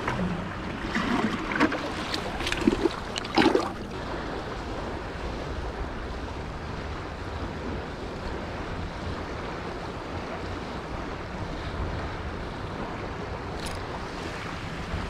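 Steady rushing of a shallow river flowing past, with wind on the microphone. In the first few seconds, several louder scuffs and rustles as rubber boots step along the muddy, grassy bank.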